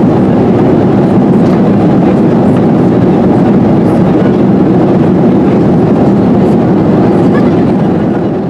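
Steady cabin roar of a Boeing 737-800 climbing, the CFM56-7B engines and rushing airflow heard from inside the cabin, fading out near the end.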